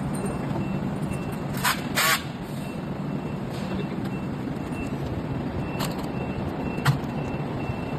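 Handling noise from working on an electric scooter's frame and cables: two short scraping rustles about two seconds in, and two sharp clicks later on, over steady workshop background noise with a faint, rapidly pulsing high beep.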